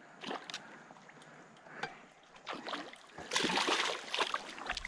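Hooked piraputanga splashing at the water surface beside the kayak: a few small splashes, then a louder spell of thrashing from a little past three seconds in.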